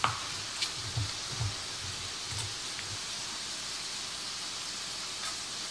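Sliced sausages sizzling in a pan of browned butter, a steady hiss, with a few soft low thumps in the first few seconds.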